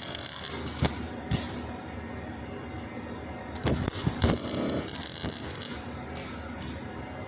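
Welding arc crackling and sizzling in two short runs, about a second and a half at the start and again a little after the middle, with a quieter hiss in between.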